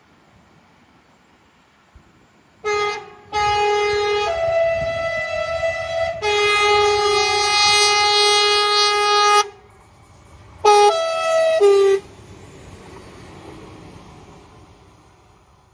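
Two-tone train horn sounding as a train passes. A short blast comes first, then a long sounding that switches between the two tones, then two more short blasts. The train's low running rumble continues underneath and fades away after the horn stops.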